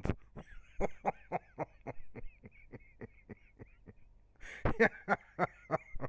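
Rapid clicking mouth noises made right against a microphone held in the mouth, about five small clicks a second. About four and a half seconds in there is a louder breathy rustle and stronger clicks.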